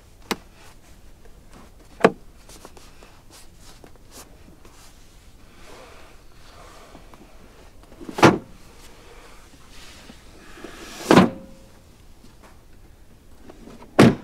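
Car doors of a 2022 Hyundai Elantra being shut: five sharp thuds a few seconds apart, the first one lighter.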